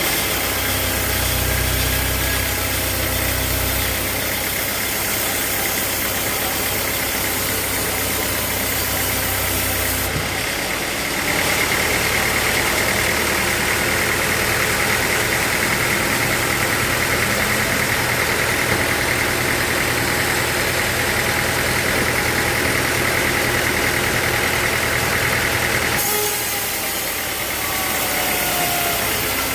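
Sawmill machinery running steadily with a low engine-like hum, the sound changing abruptly about ten seconds in and again near the end.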